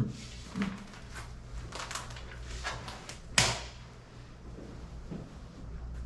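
Scattered clicks and knocks from a chiropractic treatment table being handled and set up, with one sharper, louder clack about three and a half seconds in, over a low steady hum.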